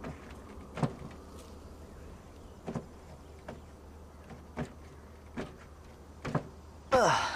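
A few soft knocks about a second apart, then a louder door sliding with a downward scraping sweep near the end.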